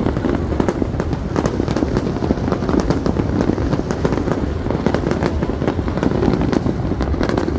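Aerial fireworks going off in a dense, unbroken barrage of bangs and crackling over a steady rumble.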